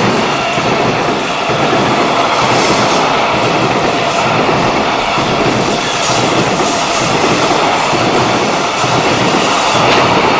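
Freight train wagons passing close by at speed. A loud steady rumble and rattle of wheels on rail is heard, with thin high-pitched wheel squeals now and then.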